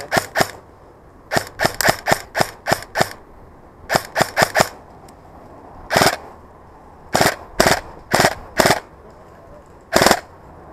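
Airsoft electric rifle, a VFC HK416, firing single shots in quick strings of up to eight, about four a second, with lone shots about six and ten seconds in. Each shot is a sharp, loud crack.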